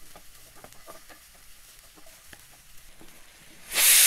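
Wooden spatula faintly scraping and ticking against a pan while stirring grated coconut and shallots dry-roasting without oil. Near the end a pressure cooker's weight valve starts letting out steam with a sudden loud hiss: the cooker has come up to pressure.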